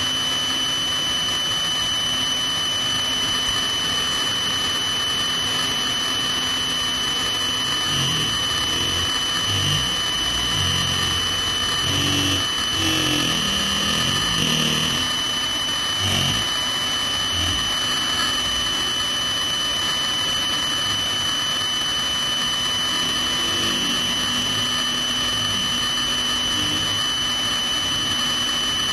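Helicopter turbine engines running on the ground, a steady high whine over a rushing noise. People's voices come up over it through the middle stretch.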